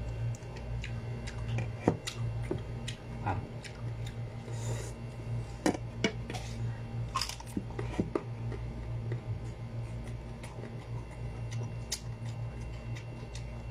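Chewing of crunchy sour green mango slices, with scattered light clicks and a few sharper taps as the slices are picked from a bowl and dipped. A steady low hum sits underneath.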